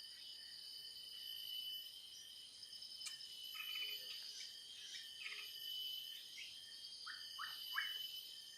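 Faint steady high drone of insects such as crickets, with birds chirping over it in short separate calls, a few around the middle and a quick run of three near the end.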